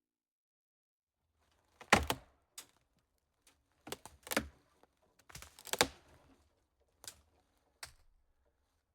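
A series of sharp, irregular clacks and knocks over a faint low hum, the loudest about two seconds in.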